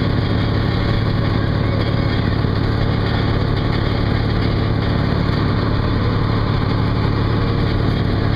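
A sailboat's inboard engine running at a steady cruising speed under way, a constant low drone, with water rushing and splashing along the hull.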